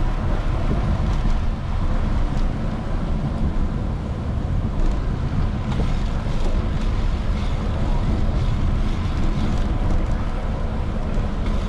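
Steady wind rumble buffeting the microphone of a camera riding on a moving bicycle.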